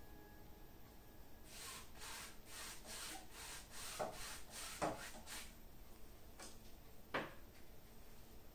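Paintbrush scrubbing acrylic paint onto a stretched canvas: a series of scratchy rubbing strokes, about two or three a second, with three sharp knocks about four, five and seven seconds in.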